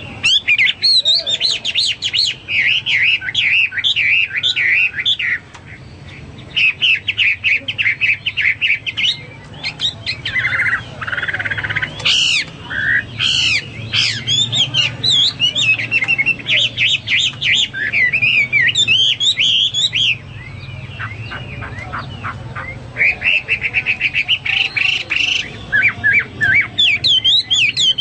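Chinese hwamei (melodious laughingthrush) in full song: loud, fast, varied whistled phrases and rapid trills, with brief lulls about six seconds in and again about twenty seconds in.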